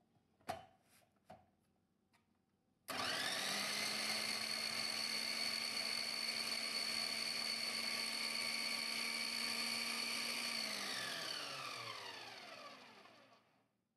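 Electric food chopper: two clicks as the bowl is set on its base, then the motor starts suddenly about three seconds in and runs at a steady whine for about seven seconds, chopping onions and tomatoes fine. After it is switched off the motor winds down with a falling whine.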